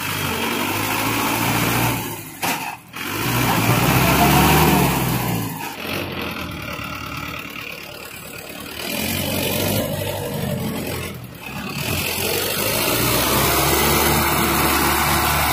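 Mahindra Arjun diesel tractor engine revving hard under heavy load, its pitch rising and falling. The sound drops briefly about three seconds in and again near eleven seconds.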